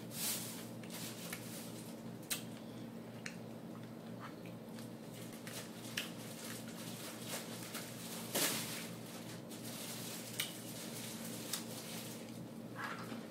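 A fork picking at salad in a clear plastic container: scattered sharp clicks and scrapes against the plastic, with one longer, louder scrape a little past halfway, plus wet chewing. A steady low hum runs underneath.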